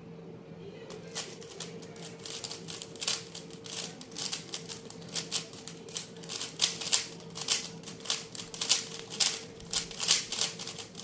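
GAN 12 Maglev magnetic 3x3 speedcube being turned rapidly, its layers clacking in quick irregular clicks several times a second. The clicks start about a second in and grow louder.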